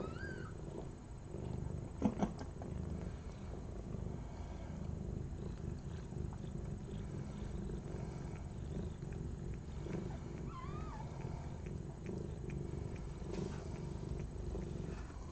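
Mother cat purring steadily in a low rumble beside her newborn kittens. There is a brief knock about two seconds in, and a couple of faint high squeaks, one near the start and one about ten seconds in.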